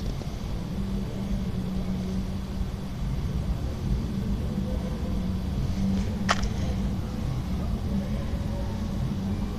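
A steady low rumble with a hum, and one sharp click about six seconds in.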